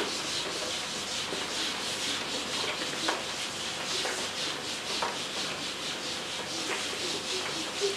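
A handheld eraser rubbed back and forth across a whiteboard in quick repeated strokes, a dry scratchy wiping, with a light knock or two along the way.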